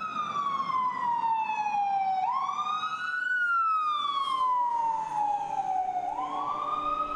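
A siren-like wailing tone with overtones: it slides slowly down in pitch for about two seconds, jumps back up within a second, slides down again, and swings up once more near the end. Low steady tones come in under it near the end.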